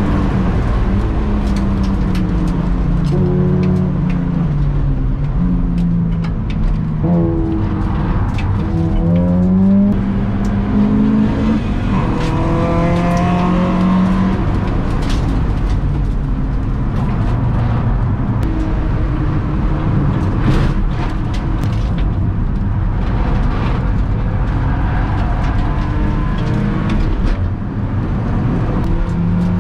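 BMW E46 track car's engine heard from inside the cabin at full throttle on circuit, its note climbing through the revs and dropping at each gear change, over steady road and tyre noise.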